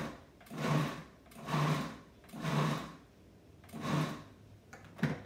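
Breville food processor pulsed in short bursts, its motor and blade chopping onions: five pulses about a second apart, the last after a slightly longer gap, then a sharp click near the end.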